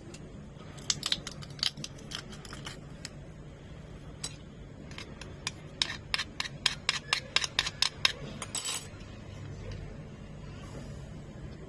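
Kitchen utensils clicking and tapping: a few scattered taps, then a quick run of knocks at about four a second for several seconds, ending in a short scrape.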